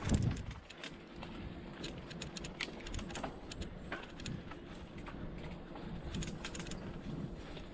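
Mountain bike rolling along a dirt singletrack, with irregular clicks and rattles from the bike over a steady rumble. A louder thump comes just after the start.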